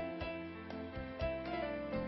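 Instrumental background music: gentle held notes with new notes struck in a steady pulse about twice a second.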